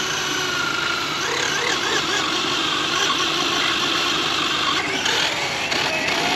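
Electric RC drag car motor whining, its pitch wavering up and down as the throttle is worked.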